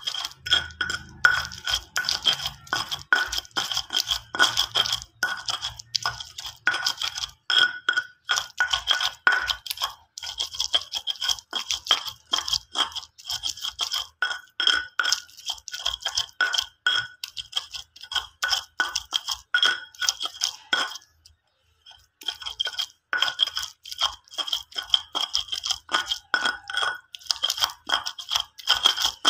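Stone pestle (ulekan) grinding fried chilli sambal in a stone mortar (cobek): rapid, repeated strokes of stone on stone through oily paste. The strokes stop briefly about three-quarters of the way through, then carry on.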